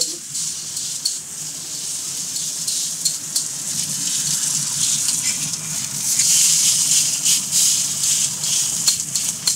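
Steak sizzling as it sears over a high gas flame in a ridged griddle pan, with a few sharp clicks of metal tongs against the pan. The sizzle grows louder about six seconds in.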